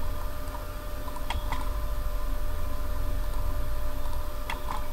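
Faint computer mouse clicks in two pairs, the first about a second in and the second near the end, over a steady low hum and hiss.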